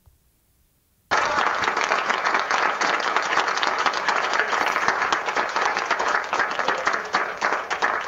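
AI-generated 'Clapping' sound effect: a group of people applauding, starting abruptly about a second in.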